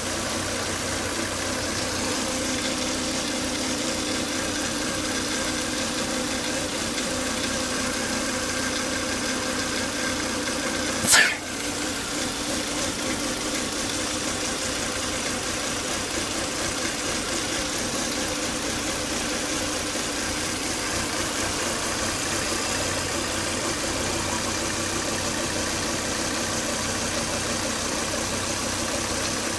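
Volvo S80 2.5T's turbocharged five-cylinder engine idling steadily with a whine in its note, the noise the owner traced to excessive crankcase vacuum from a faulty breather box. A single sharp click about eleven seconds in.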